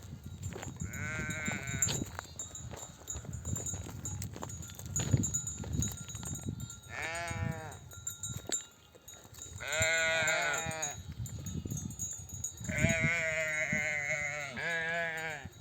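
Flock of sheep bleating: about five separate bleats, the longest about ten seconds in and a run of overlapping ones near the end, over a continuous low rumble. These are mother sheep back from pasture calling to their lambs to suckle them.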